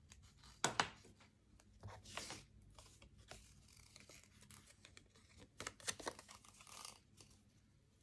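Paper and ribbon being handled close up: short crinkling, rustling bouts as the ribbon ends are pressed onto the back of a card-stock circle with glue dots, the sharpest about a second in and a cluster around six seconds.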